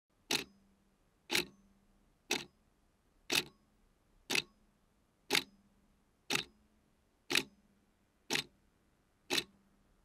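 Countdown ticking sound effect: a sharp tick once a second, ten in all.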